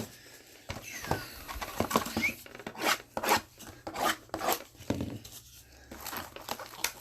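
Plastic wrapping being torn and crumpled off a sealed box of trading cards by hand, in a quick series of short rustling rips.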